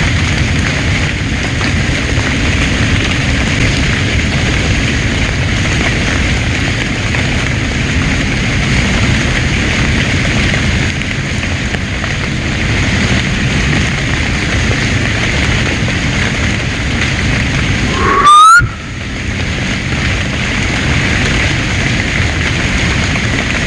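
Steady heavy rain hissing. About three-quarters of the way through comes one short, very loud rising tone, loud enough to distort.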